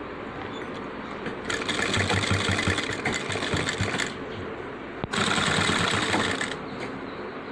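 Sewing machine stitching in two short runs, the first about two and a half seconds long and the second about a second and a half, with a quieter steady hum between them. It is sewing a seam along the edge of a shirt's front placket.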